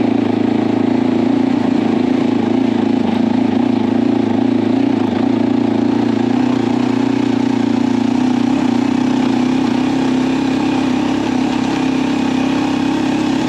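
Motorcycle engine running at a steady pitch while being ridden off-road, holding speed to carry momentum over rough ground.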